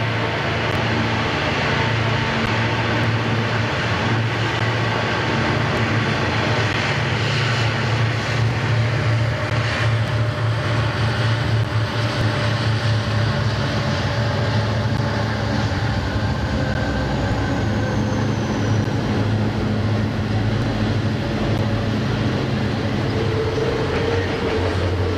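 Several Conrail diesel-electric freight locomotives running, a loud steady drone echoing from the tunnel as they come out at the head of a double-stack container train. A higher steady tone joins near the end.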